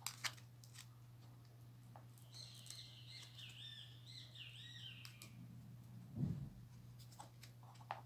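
Small objects handled on a table: two sharp clicks at the start and a soft bump about six seconds in. Between them, from about two to five seconds in, a bird warbles faintly with quick wavering chirps. A steady low hum runs underneath throughout.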